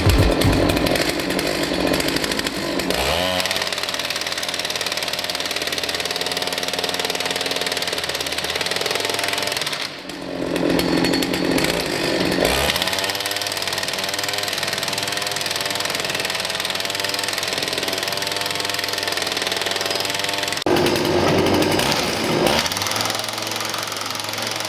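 Cembre NR-11P impact wrench's small petrol engine running, with the rapid hammering rattle of its impact mechanism. The sound dips briefly about ten seconds in and changes character near twenty seconds, then settles toward a lower running note.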